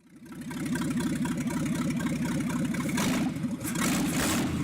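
The 1968 Ford F-250's engine running steadily with a rapid, rough firing pulse. It fades in over the first half second.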